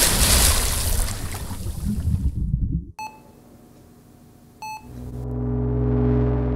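Loud rushing underwater noise that fades and cuts off about three seconds in. Then two electronic beeps of a hospital patient monitor, about a second and a half apart. A low droning rumble swells up near the end.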